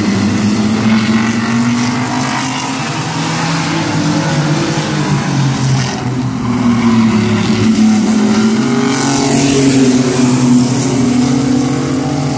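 Mini-truck race engines running laps around an oval track, their pitch rising and falling as the trucks accelerate and lift through the turns. The sound grows louder and harsher for about a second around nine seconds in.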